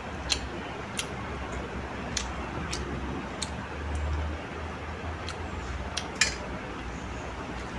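Sharp, light clicks of fingers and nails against steel plates and bowls while rice and curry are mixed and eaten by hand, scattered irregularly, with a close pair of louder ones about six seconds in, over a steady low hum.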